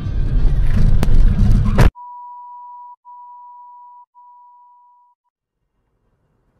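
Loud music cuts off suddenly about two seconds in. Three steady electronic beeps follow, each about a second long with short gaps between them, each fainter than the last.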